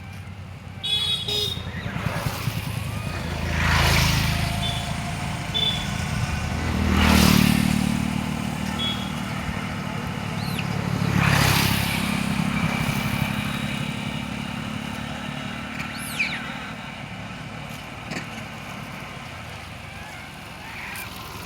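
Road traffic: motor vehicles pass one after another, each swelling and fading, three times in the first half, over a steady low engine rumble.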